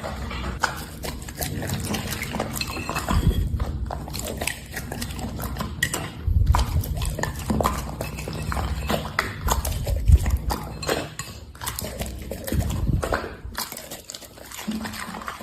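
A dog at a food box, with many short clinks and knocks of dishes and utensils over low thuds.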